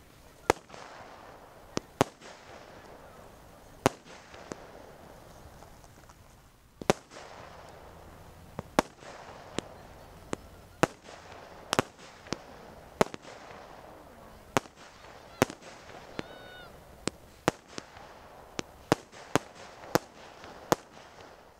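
Aerial fireworks bursting overhead: a string of sharp bangs at irregular intervals, about one a second, with a steady rushing haze between them.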